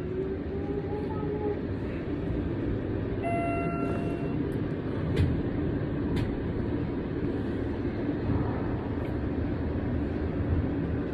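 Elevator car running between floors: a steady rumble and motor hum, with a short electronic beep about three seconds in and two sharp clicks a second apart around the middle.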